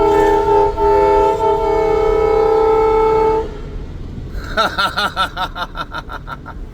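Multi-chime air train horn mounted on a pickup truck, blown as one loud chord held for about three and a half seconds and then cut off. A quicker run of short pulsing sounds follows about a second later.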